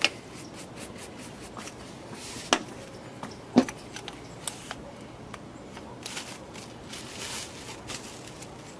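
Scattered light scrapes, rubs and clicks with a few sharp knocks, the loudest about three and a half seconds in: hand work with a brush and tools while staining wooden porch railings.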